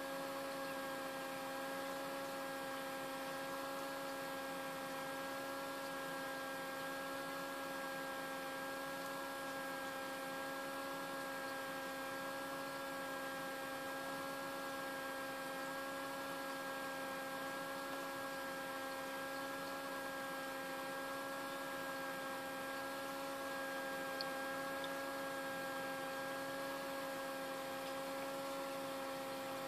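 Small egg incubator's fan motor running with a steady hum of several even tones over a faint hiss.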